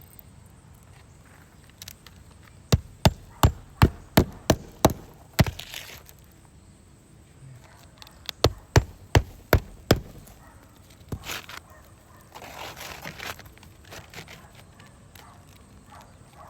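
Hammer nailing a roof box vent back down: a run of about eight quick strikes, a pause, then about five more. Afterwards a rustling scrape of shingle material being handled.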